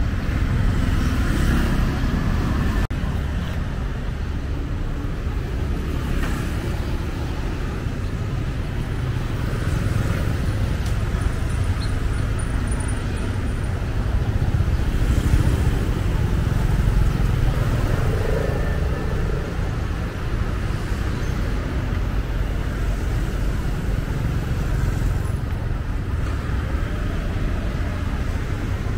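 Street traffic: motorbikes and cars passing on a busy city road, a steady rumble that swells with a closer pass about halfway through.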